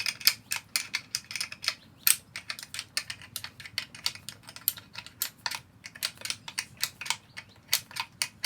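Ratchet wrench clicking in a steady run, about five clicks a second, as it turns a case splitting tool to split the VW engine case halves.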